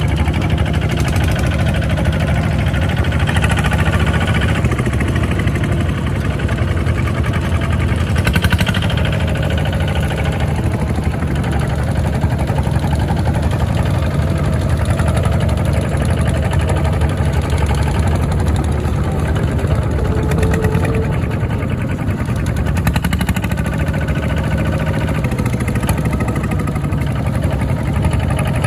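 Single-cylinder diesel engine of a two-wheel walking tractor running steadily as it drives along a dirt track, with a second tractor's engine close behind.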